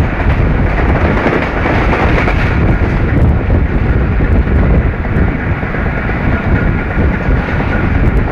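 A moving Pakistan Railways railcar heard from an open window: a steady, loud rumble of wheels running on the rails.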